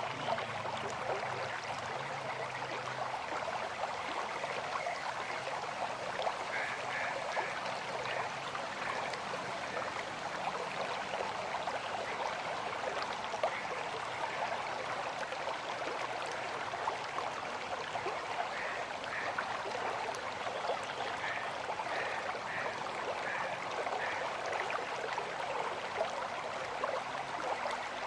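River water rushing and splashing in a steady, unbroken stream.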